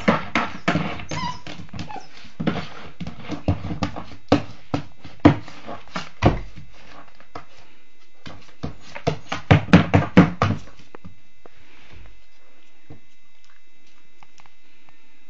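Border Collie puppy pawing and scratching at a plastic storage bin of dog food: irregular knocks and scrapes of claws and paws on the plastic, with a quick flurry about ten seconds in, then stopping.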